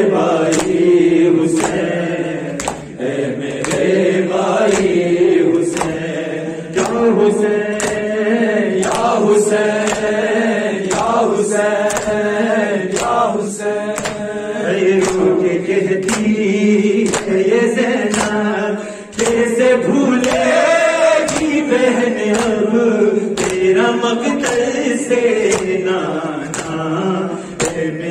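Urdu noha (Muharram lament) chanted by a male reciter into a microphone, with other men's voices joining in. It is kept in time by a steady beat of open-hand chest strikes (matam), a little over one a second.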